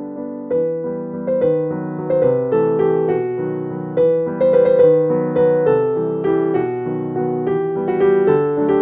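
Background piano music: a melody of struck notes over chords, each note starting sharply and fading.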